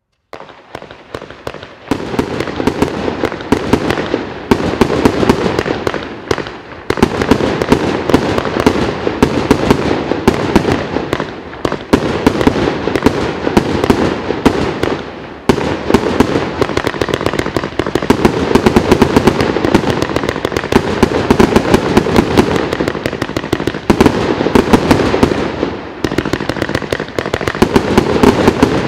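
100-shot 30 mm firework cake firing green glitter bouquet and peony shells in quick succession: a dense, continuous run of launch thumps and bursts, broken by a few brief lulls.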